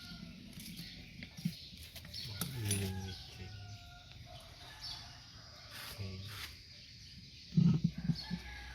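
Chickens clucking and a rooster calling, with a brief louder low burst near the end.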